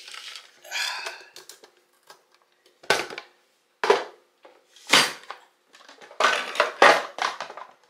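Hand-press vegetable chopper dicing bell peppers and onions: the lid is pushed down through the grid blade into the plastic container, giving sharp crunching clunks. They come about a second apart, then several in quick succession near the end.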